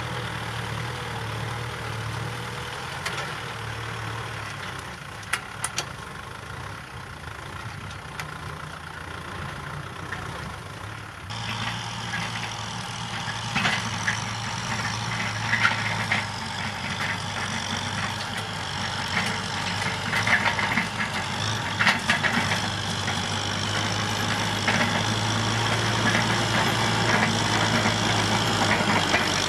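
Kubota tractor diesel engines running steadily while working a ploughed field, with scattered metallic clanks and rattles. About a third of the way in the sound turns louder and busier.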